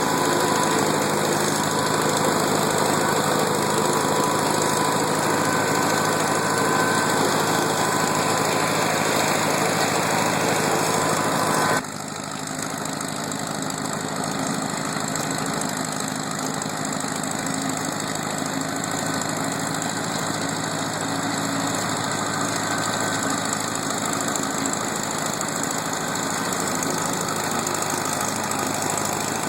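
Antique farm tractor engine running steadily. About twelve seconds in, the sound drops abruptly and carries on a little quieter.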